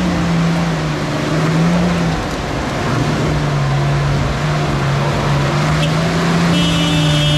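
Toyota Land Cruiser 70-series pickup's 4.5-litre engine pulling under load up a muddy slope. Its pitch wavers and dips briefly about two seconds in, then holds steady.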